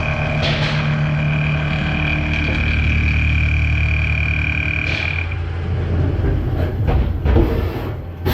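Mazak horizontal machining center cutting AR400 abrasion-resistant steel: a steady high tone over a low hum, which stops about five seconds in and gives way to irregular knocks and clatter.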